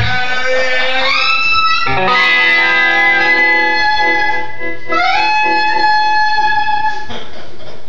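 Live band jamming: a saxophone plays long held notes that slide up into pitch, over electric guitars.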